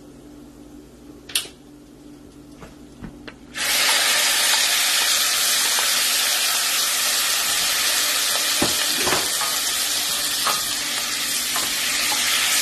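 Rice hitting hot butter and oil in a stainless steel pot with browned vermicelli, setting off a loud, steady sizzle that starts suddenly a little over a third of the way in. Before it there is a single sharp click, and later a wooden spoon stirs the rice with a few light knocks against the pot.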